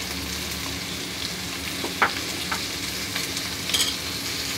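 Boiled potato pieces and green peas sizzling in hot oil in an aluminium kadhai: a steady frying hiss with a few short crackles.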